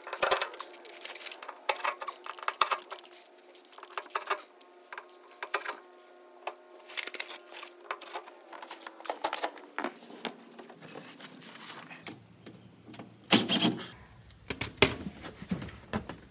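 Scattered metallic clicks, clinks and rattles as fasteners are worked out of the plastic underbody panel of a Kawasaki Mule Pro FX and the panel is handled. There is a louder clatter about 13 seconds in.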